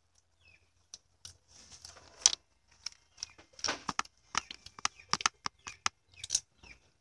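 A hand rummaging through a pile of popcorn right next to the microphone: light, irregular rustles and crackles, busier in the second half.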